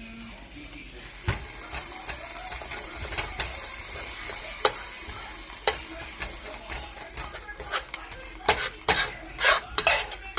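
Chicken and shrimp frying in pans, a steady sizzle. A utensil clicks and scrapes against the pan now and then, more often near the end as the food is stirred and turned.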